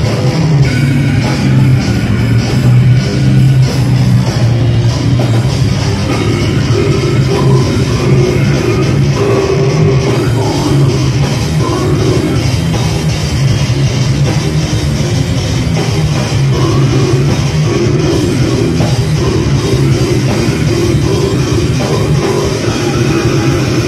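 A death metal band playing live at full volume: drum kit, heavily distorted guitars and bass in a dense, unbroken wall of sound.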